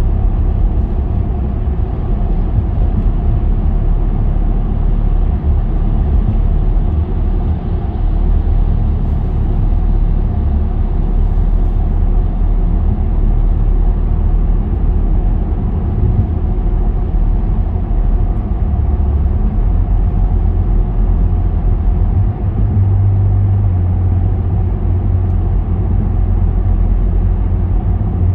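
Car driving steadily through a road tunnel: a continuous low rumble of tyre and engine noise, a little stronger in the lowest range from about two-thirds of the way through.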